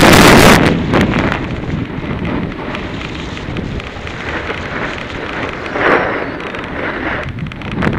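Wind rushing over the microphone of a skier's action camera during a fast downhill run, with the hiss of skis on packed snow underneath. The wind is loudest for the first second or so and swells again briefly about six seconds in.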